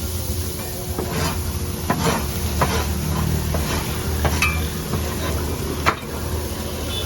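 A metal utensil knocking and scraping against a cooking pot, with irregular sharp clinks about once or twice a second, over a steady low hum and hiss.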